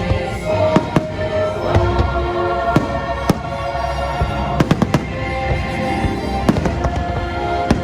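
Fireworks show: a string of sharp cracks and bangs, with a quick cluster of bangs a little past the middle, over the show's soundtrack music of held notes.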